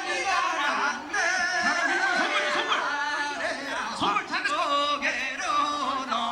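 Music with a high-pitched singing voice, its pitch sliding and holding over several notes.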